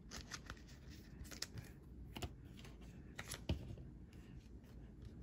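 Faint, scattered plastic rustles and small clicks of trading cards being handled and slid into plastic card sleeves.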